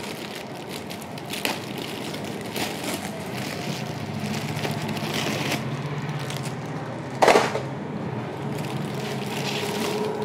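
Plastic wrapping crinkling and cardboard rustling as cellophane-wrapped plastic tackle boxes are lifted out of a carton. A few sharp knocks are heard, the loudest about seven seconds in.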